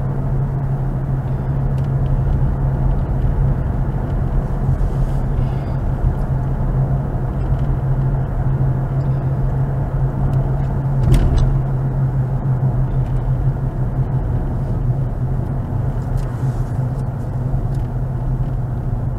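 Steady road and engine noise of a car, heard from inside the cabin while driving, with one short click about eleven seconds in.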